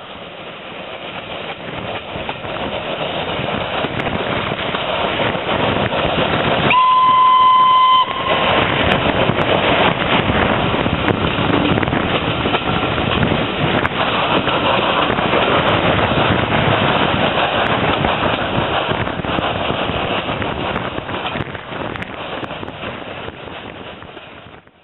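The 'USA Class' 0-6-0 side tank steam locomotive sounds one steady whistle blast of a little over a second, about seven seconds in. Over it is the continuous noise of the train running, heard from an open carriage window with wind rushing past. The engine is working the train uphill.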